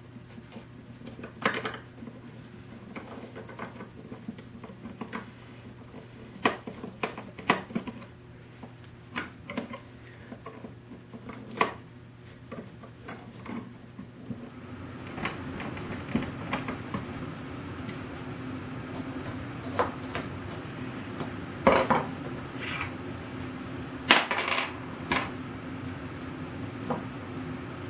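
Small metal hardware clinking and tapping as corner pieces and screws are handled and driven in with a screwdriver, in irregular light strikes with a few sharper ones. About halfway through, a steady hum starts and carries on under the clinks.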